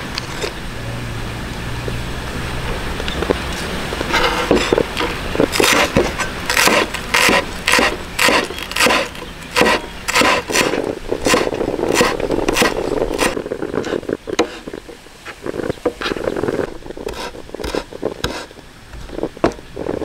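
Cleaver chopping cilantro on a wooden cutting board: a run of steady, evenly spaced chops, about two to three a second, starting a few seconds in and thinning to scattered strokes near the end.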